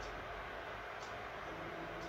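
Anycubic Kobra Max 3D printer running: a steady fan whir with faint stepper-motor tones that change pitch near the end as the print head moves over the bed, and a faint tick about once a second.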